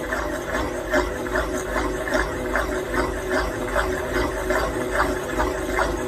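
Washing machine drum turning during a spin cycle, with a steady motor hum and an even, rhythmic knocking about two to three times a second.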